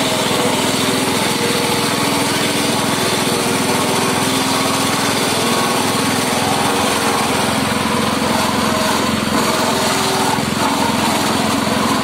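Grass chopper driven by a small petrol engine, running steadily as it cuts forage grass fed into it.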